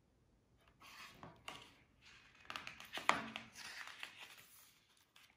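Soft rustling of a paperback picture book's pages being handled and turned, with a few light clicks and taps of fingers on the paper.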